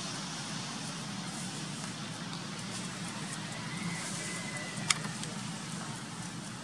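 Steady outdoor background noise, a low hum with a hiss over it, like distant traffic. About four seconds in a faint thin high whistle sounds for about a second, ending in one sharp click.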